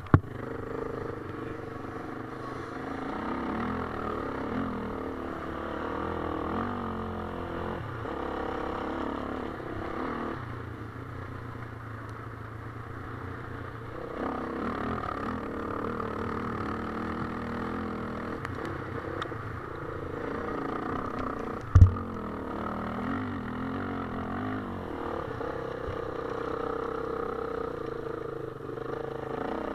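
Motocross dirt bike engine being ridden hard, its pitch rising and falling again and again as the throttle opens and closes, with one sharp knock about two-thirds of the way through.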